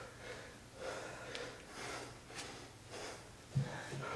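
Heavy breathing of people straining through bicycle crunches: short, forced breaths about twice a second. A brief low thump comes near the end.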